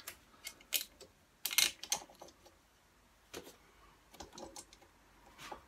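Irregular light metallic clicks and taps as the ignition coil and its mounting screw are handled and fitted back onto a Briggs & Stratton small engine, the loudest cluster about one and a half seconds in.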